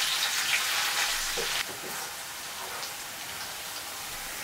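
Chopped onion sizzling in hot vegetable oil in a frying pan, stirred with a plastic spatula. The sizzle drops suddenly to a quieter, steadier hiss about a second and a half in.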